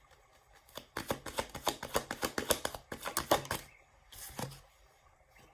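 Tarot cards being shuffled: a rapid run of crisp card clicks for about two and a half seconds, then a brief second burst near the end.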